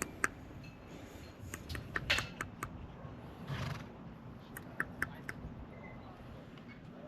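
Irregular sharp clicks and knocks of horse hooves on hard ground, with a short scuffing rustle about three and a half seconds in.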